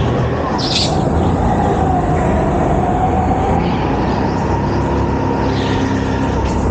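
Onboard sound of a go-kart driven hard around an indoor track: its motor running with a wavering whine that rises and falls with speed over a dense low rumble. Short bursts of higher hiss come in the corners, about a second in and near the end.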